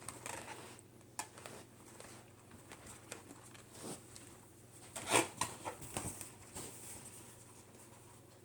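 Faint handling of latex balloons, with a few light clicks and rustles, and one short louder burst about five seconds in.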